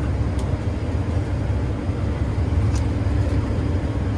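New Holland combine harvester running steadily under load while cutting wheat: a continuous low drone, with two faint ticks, one about half a second in and one near three seconds.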